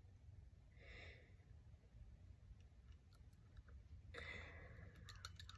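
Near silence: a faint breath about a second in and another a little after four seconds, then a few faint clicks near the end as fingers handle fishing line at a reel.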